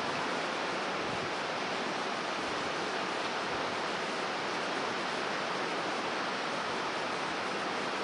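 Storm surf breaking on a rocky shore, mixed with strong wind: a steady, even rushing noise with no separate crashes standing out.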